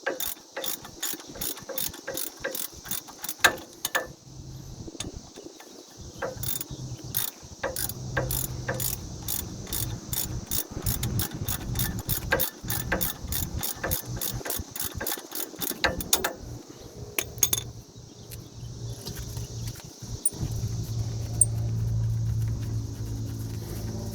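Ratchet wrench clicking in quick runs with short pauses, backing out the bolts that hold a Chevy Express van's front wheel hub assembly. A steady low hum rises in the second half.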